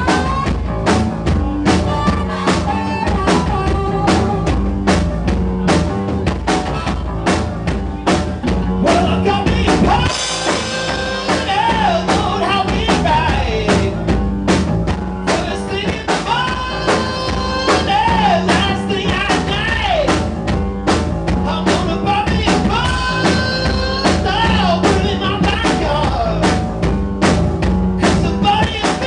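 Rock band playing: a driving drum-kit beat with bass and guitar, and a singer's voice coming in about ten seconds in.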